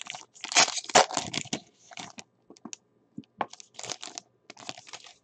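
A foil wrapper on a 2018 Luminance football card pack being torn open and crinkled by hand. A loud tearing rustle fills the first second and a half, followed by scattered crinkles and crackles.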